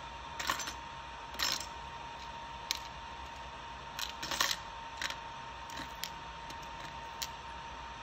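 Precision screwdriver driving a tiny Phillips screw into the plastic shell of a drone remote controller: a scatter of small clicks and scrapes, with the loudest cluster about four seconds in.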